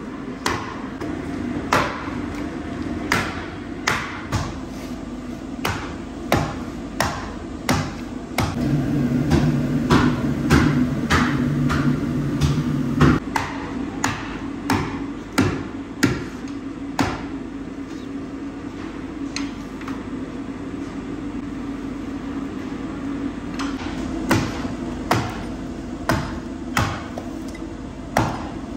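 Heavy meat cleaver chopping through a rack of lamb ribs into a wooden stump block: sharp chops roughly once a second, pausing for several seconds past the middle, over a steady low hum.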